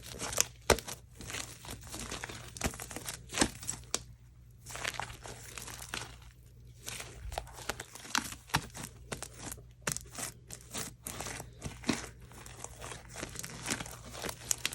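Sticky, fluffy slime mixed with shaving cream being squished and stretched by hand, giving irregular sharp pops, crackles and sticky tearing sounds, with a couple of brief pauses.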